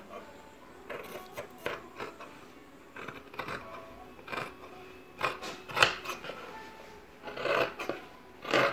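Large dressmaker's shears cutting through dress fabric on a table: irregular snips and fabric rustle, the loudest strokes in the second half.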